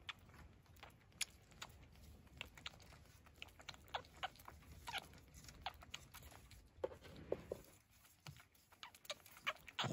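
Faint, irregular clicks and short squeaks of a baby vervet monkey sucking milk from a bottle fixed to the wire mesh of a feeding cage.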